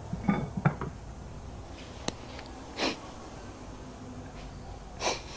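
Quiet kitchen room tone, with a few light clicks in the first second and a tick about two seconds in. Two short, breathy puffs come about three and five seconds in.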